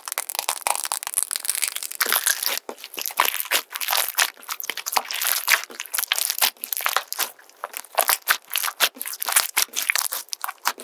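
Slime being squeezed and worked by hand, giving a dense, irregular run of crackling and popping clicks.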